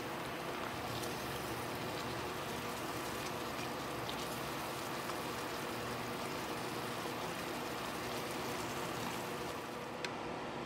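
Stir-fry vegetables and tofu sizzling and bubbling in a watery sauce in a frying pan, a steady crackle, with a few faint clicks of a plastic spatula stirring through it.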